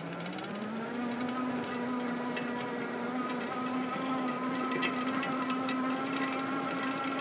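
Electric motor of a 750 W fat-tire tadpole e-trike whining under throttle, its pitch rising a little just after the start and then holding steady, with faint light clicks throughout.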